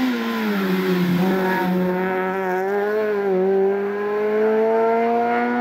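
Four-cylinder engine of a Honda Civic hatchback hill-climb race car at high revs as it passes and pulls away uphill. The note drops about a second in, then rises steadily as the car accelerates out of the bend.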